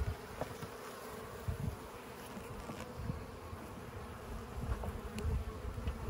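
Honey bees buzzing from an open hive, a steady hum. Occasional low thumps and a few light clicks come from wooden frames and a hive tool being handled in the box.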